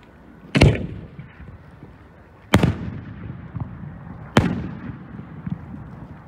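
Hobbyist-made aerial firework shells bursting: three loud bangs about two seconds apart, each trailing off in echo.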